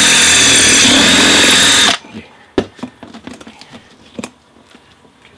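Cordless drill running at full speed, boring a rivet hole through a metal pipe. It stops abruptly about two seconds in, and a few light knocks and clicks follow.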